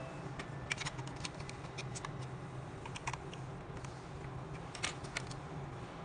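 Hard plastic doorbell camera housing and its mounting plate being handled: scattered small clicks and taps, a cluster about a second in and the loudest near the end, over a low steady hum.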